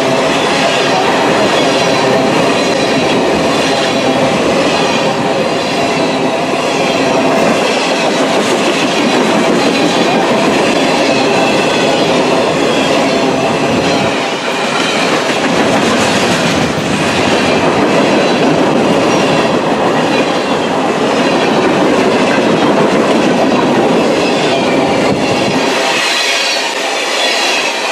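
Mixed freight train's tank cars and boxcars rolling past close by: steady rumble of steel wheels on the rails with high metallic squealing from the wheels. The deep rumble drops away near the end.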